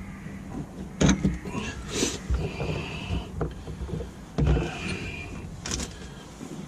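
Handling noise from working a gear knob onto a gear stick: about four knocks, with scraping and rustling between them.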